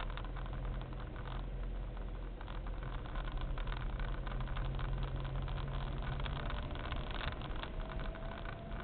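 Car running at low town speed: a steady engine hum with road noise and frequent faint clicks, and a thin whine that rises gently near the end.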